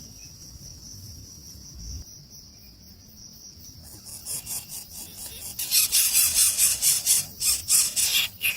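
Nestling birds begging for food: rapid, high, shrill repeated calls that start about halfway through and are loudest over the last three seconds. A steady high insect trill runs underneath.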